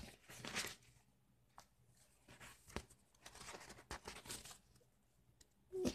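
Stiff coffee-dyed paper pages of a ring-bound journal being turned by hand: faint, scattered paper rustles with a few short ticks.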